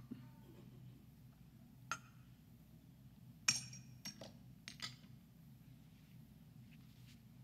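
A handful of light, sharp clinks of altar vessels, a metal chalice and glass cruets touched together while the wine and water are readied. The loudest clink comes about halfway through.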